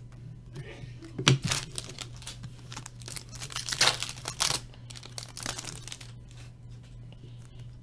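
Foil wrapper of a hockey card pack crinkling and tearing in three bursts, with scattered light clicks, over a steady low hum.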